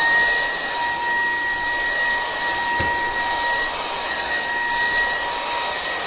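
Cordless stick vacuum running in turbo mode, its high-speed motor giving a steady high whine over the rushing of suction. The floor head is being pushed over a shag carpet.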